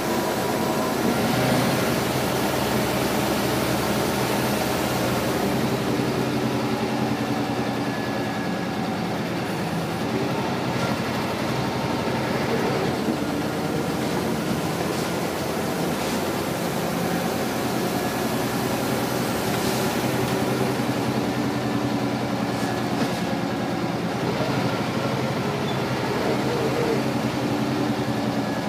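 Scania L94 single-deck bus's diesel engine and ZF automatic gearbox heard from inside the saloon while under way, the engine note rising and falling several times as it pulls through the gears, over steady road noise with a few light rattles.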